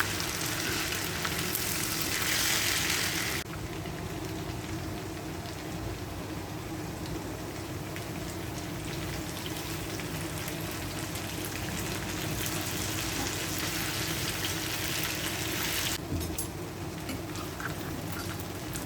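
Masala-coated chicken pieces sizzling as they fry in coconut oil in a pan. The sizzle is louder for the first few seconds, drops suddenly about three and a half seconds in, and drops again near the end.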